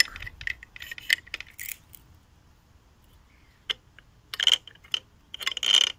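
Metal clinks and light ringing taps from a pin spanner working the locking flange nut on an angle grinder's spindle, tightening a fresh cutting disc. There are scattered small clicks at first, then a short lull, then a few sharper ringing clinks near the end.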